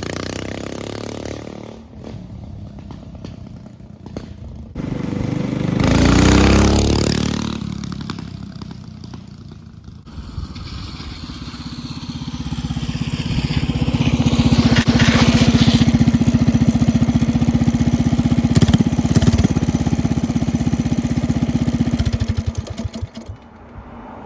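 Minibike's small engine running while ridden. About six seconds in it passes close, its pitch falling as it goes by; from about eleven seconds it runs at a steady, growing note, then drops away near the end.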